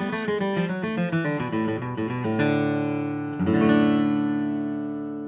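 Background music on acoustic guitar: a quick run of plucked notes, then a chord struck about three and a half seconds in that rings out and slowly fades.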